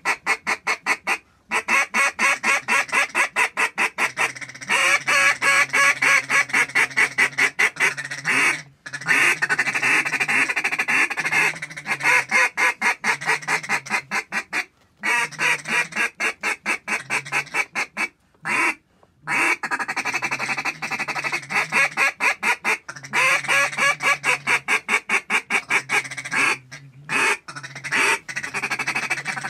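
Hand-blown waterfowl calls worked loudly and close by, in fast runs of short notes, several a second, with brief pauses between runs. This is hunters calling to ducks circling overhead.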